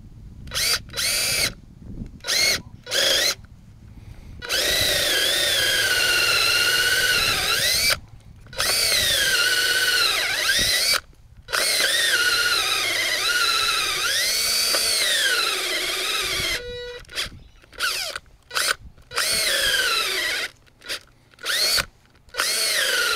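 Cordless drill boring holes into a green hardwood log thought to be ironbark, its motor whine rising and falling in pitch as the bit loads up in the wood. It starts with a few short trigger bursts, runs for long stretches of several seconds in the middle, and goes back to short bursts near the end.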